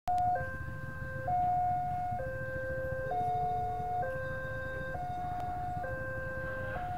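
Railway level-crossing warning alarm sounding, alternating between a higher and a lower tone and switching about once a second, as it does when a train is approaching.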